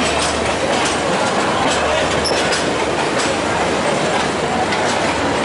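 Wheels of a moving train running over the rails, heard from on board: a steady rumble and rush with sharp clicks at uneven spacing from rail joints and points.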